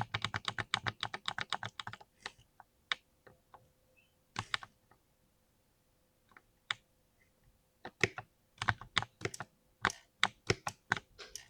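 Mechanical keyboard with linear switches being typed on. A fast run of keystrokes, about ten a second, fills the first two seconds; then come scattered single presses and a pause of a few seconds, and a fresh burst of typing starts about eight seconds in.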